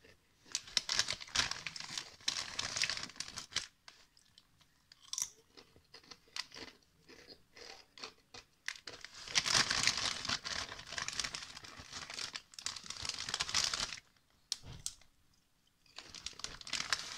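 Someone eating spicy crisps, crunching and chewing, while a plastic snack bag crinkles and rustles in irregular bursts, with a longer stretch of crackling in the second half and a short pause near the end.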